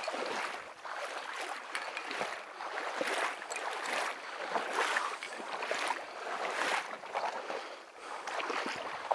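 Rhythmic swishing and splashing of shallow marsh water and reeds, swelling about once a second as someone moves through it.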